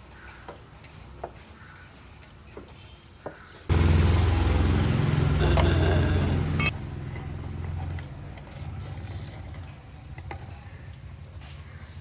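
A motor runs loudly for about three seconds, starting and stopping abruptly, then a quieter hum carries on briefly; faint clicks and ticks of handwork come before and after.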